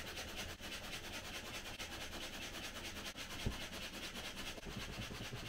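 Two-stage hand pump inflating an inflatable paddle board: a steady rushing, scraping hiss of the piston pushing air, in two-stage mode so it pumps on both the up- and down-stroke. There is a single low thump about three and a half seconds in.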